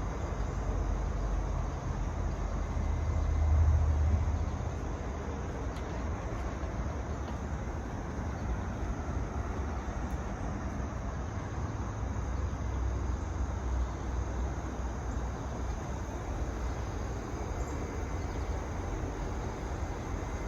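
Outdoor background noise: a steady low rumble that swells briefly about three to four seconds in, with a faint even hiss over it.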